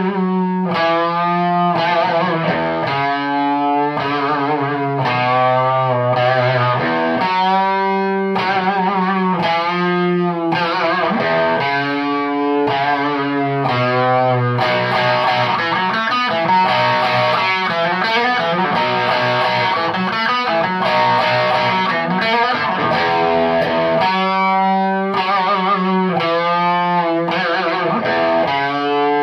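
Electric guitar played straight into a GR Amplifiers JKD 6AQ5 valve amp head's low channel, overdriven and distorted. Long held notes and chords waver slightly in pitch, with a busier run of quicker notes in the middle.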